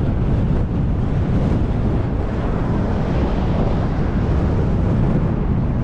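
Steady wind buffeting the microphone, a loud low rumble with no breaks.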